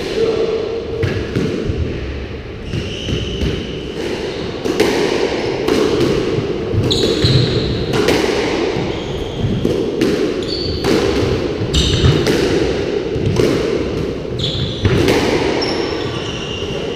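Squash rally: a squash ball struck by rackets and smacking off the court walls in a steady run of sharp, echoing hits, with sports shoes squeaking on the wooden floor between shots.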